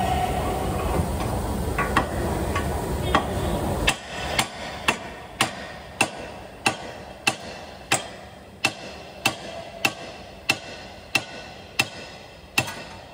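Hammer striking steel at a car's front wheel hub, knocking the old CV axle loose from the hub. A steady low rumble with a few lighter knocks runs for the first four seconds and cuts off suddenly. Then comes an even run of about fifteen sharp, ringing blows, roughly one every 0.6 seconds.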